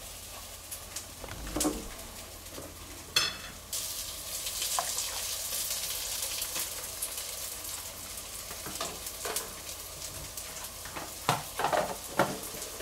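Frothed milk pouring from a stainless Nespresso milk frother jug into a mug, a steady fizzing, crackling hiss of foam. There is a short metallic clink about three seconds in, and a few knocks and clicks near the end as the jug is tipped and tapped against the mug.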